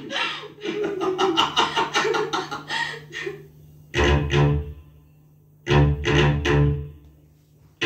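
Film music played back from a cassette on a Kenwood KX-W893 deck. First comes a quick run of rapid notes for about three seconds, then after a short pause two brief, loud, bass-heavy passages with a near-quiet gap between them.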